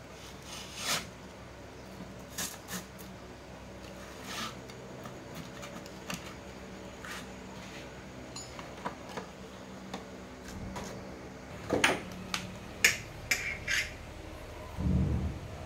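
Light clicks and knocks of an inverter circuit board and its aluminium heatsink case being handled and fitted together on a wooden bench, with a cluster of sharper knocks near the end and a brief low buzz just before it ends.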